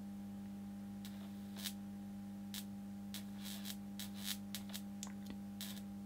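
High-voltage flash tester running at 3750 volts with a steady hum, and faint irregular ticks and crackles of small sparking as the probe is held on the wires. The tester does not trip: the connector's insulation holds.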